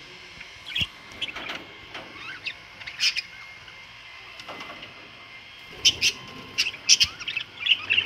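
A flock of budgerigars chirping in short, sharp calls, a few scattered at first, then a busier run about six to eight seconds in.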